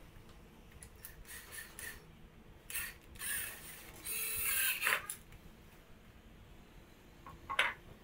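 Cordless drill driving a screw through laminated chipboard into a wooden post, running in several short bursts with the longest and loudest run about four seconds in. A single sharp knock near the end.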